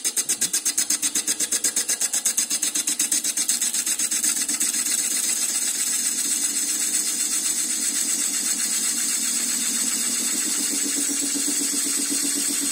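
A Wiedemann cup tool cutting the end grain of a bowl blank spinning on a wood lathe, a steady cutting hiss over the running lathe. The first few seconds have a rapid, even pulsing, and the cut then settles into a smooth, continuous sound.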